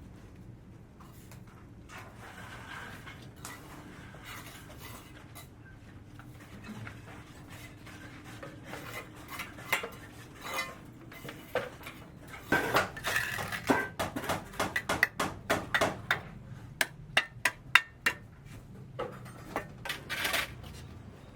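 Hard objects clinking and knocking: scattered sharp clicks, becoming a quick, irregular run of knocks from about halfway through.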